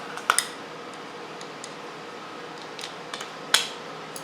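A few light, sharp clicks and clinks of small hard parts being handled: a pair near the start, a couple of faint ones later, and the loudest about three and a half seconds in, over a steady faint hum.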